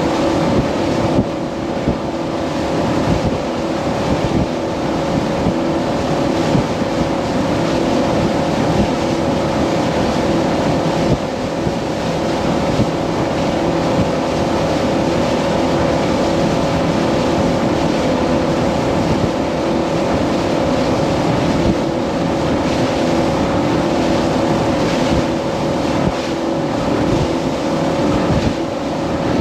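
Outboard motor of a Pathfinder 2700 Open boat running at a steady speed, a constant hum, with wind buffeting the microphone and rough rushing and knocking noise from the hull in the waves.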